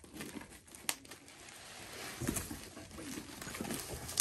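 Bubble wrap and plastic packing crinkling and rustling as a heavy wrapped item is handled and lifted in a cardboard box, with a sharp click about a second in and a few soft thumps.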